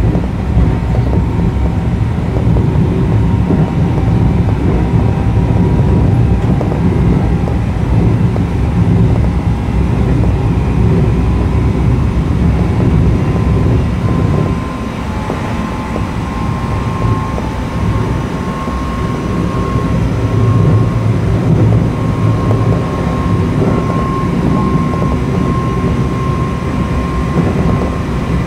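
Keio 8000 series electric train running at speed: its Hitachi GTO-VVVF inverter and traction motors give steady high tones over the rumble of the wheels on the rails. The rumble eases for a few seconds about halfway through, then returns.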